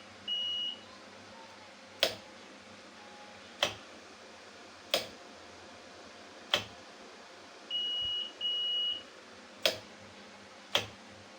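Six sharp knocks on a smart door lock prototype, tapping out a knock code for its piezo knock sensor, unevenly spaced. Its buzzer gives a short high beep just after the start and two more, back to back, about two-thirds of the way through.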